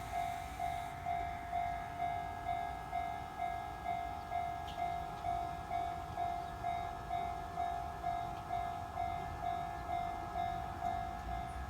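Japanese level crossing warning bell ringing repeatedly, about two strikes a second, each strike fading away, over a low rumble. A higher hiss stops about a second in.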